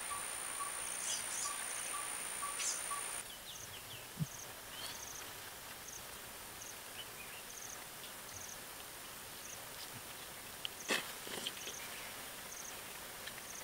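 Insects droning and chirping: a steady high-pitched buzz that drops out about three seconds in and comes back around six seconds, with short high chirps repeating about once a second. A couple of soft knocks, the clearest about eleven seconds in.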